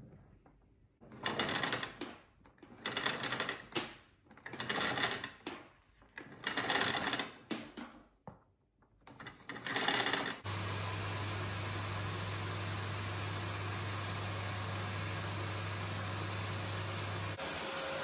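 Philips canister vacuum cleaner's power cord pulled out of its reel in about six rattling pulls, then the vacuum's motor switched on and running steadily from about ten seconds in.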